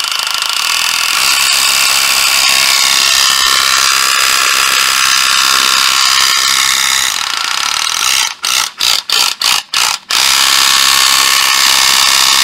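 Hitachi CR 10DL 10.8 V cordless mini reciprocating saw running with no load, its motor and blade drive making a loud, steady whir. About eight seconds in, the trigger is blipped on and off six or so times in quick succession, then the saw runs steadily again.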